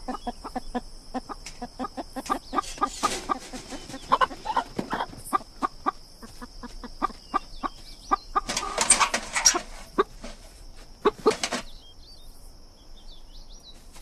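Domestic chickens clucking in many short, repeated calls, with a dense flurry of wing flapping about eight and a half seconds in.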